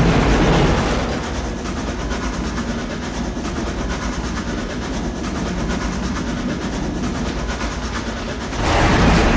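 Steam train running on rails with a steady rhythmic clatter. It is louder at the start and swells again near the end.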